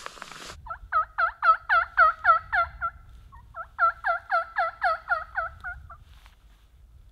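Turkey yelps in two quick series of about nine or ten notes each, roughly four a second, each note a two-tone yelp, with a short break about three seconds in.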